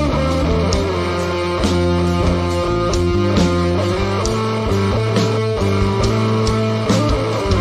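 Live rock band playing an instrumental passage with no vocals: electric guitar lines over bass guitar and a drum kit keeping a steady beat.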